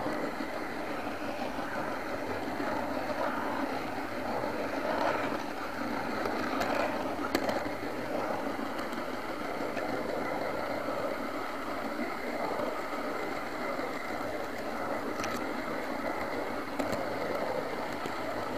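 OO gauge model train running on its garden track, heard from on board: a steady whirr of the motor and wheels on the rails, with a few sharp clicks.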